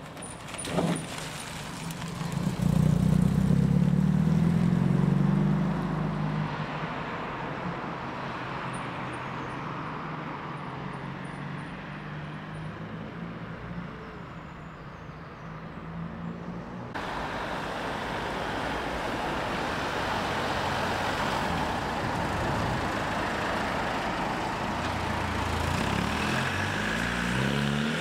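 A small classic sports coupé's engine pulls away and passes loud, then fades into the distance, with a sharp knock about a second in. Later a Land Rover Defender's engine revs up as it drives off.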